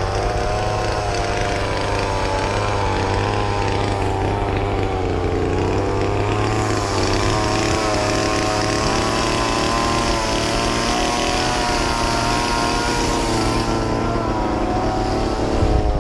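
A small vehicle's motor running steadily, its whine wavering slightly in pitch over a low hum, with a short bump near the end.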